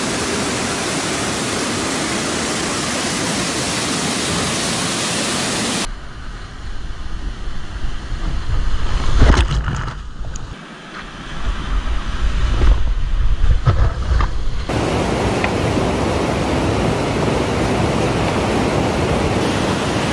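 Whitewater river rapids rushing loudly and steadily. About six seconds in the sound turns muffled and low, with splashes and a brief drop in level, heard from a camera on a kayak as it plunges through whitewater; about fifteen seconds in the steady rush of a waterfall slide returns.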